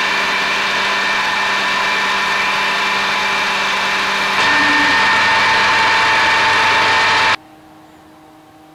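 Metal lathe running, turning a steel shaft with the cutting tool feeding along it: a steady machine noise with several whining tones, which grows louder with a new whine about four and a half seconds in. It cuts off abruptly about seven and a half seconds in, leaving a faint low hum.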